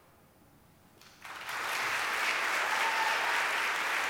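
Audience applauding: after about a second of near silence the clapping breaks out, swells quickly and goes on steadily.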